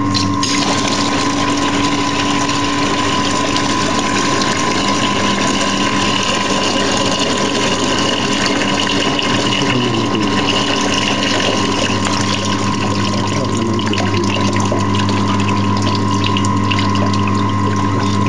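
Water gushing steadily out of a hole near the bottom of a tank as the tank drains, starting about half a second in. A steady hum runs underneath.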